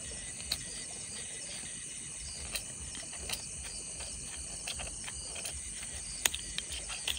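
Magnesium fire-starter rod being scraped into shavings, a few short irregular scratchy strokes, over a steady chorus of crickets and insects.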